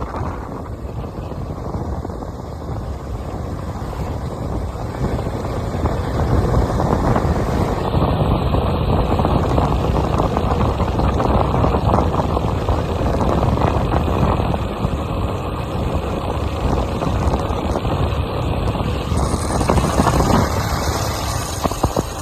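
Steady running noise of a moving road vehicle, engine and road noise together, growing louder about six seconds in.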